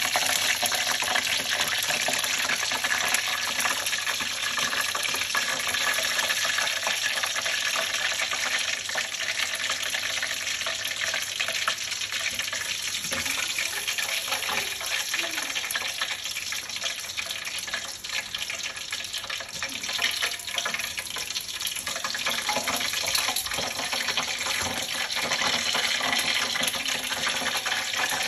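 Puffer fish deep-frying in hot oil: a steady sizzle with dense fine crackling.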